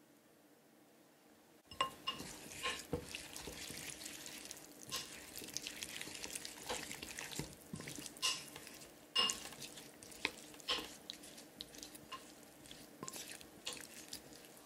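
Wooden spoon stirring wet chopped tomatoes and basil in a glass bowl: moist squelching with repeated clicks and knocks of the spoon against the glass, some ringing briefly. The stirring starts about two seconds in.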